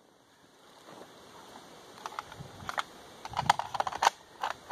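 Sharp metal clicks and clacks of an M1A rifle being handled, starting about two seconds in and coming more often toward the end, with a couple of soft dull knocks.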